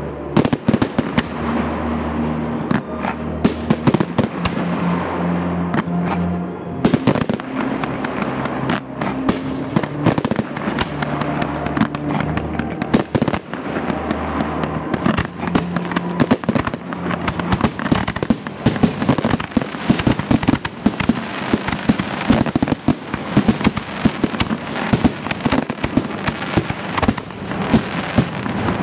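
Fireworks display: a continuous run of bangs and crackling shell bursts, coming thicker and faster in the second half. Steady low held tones sound underneath through the first half.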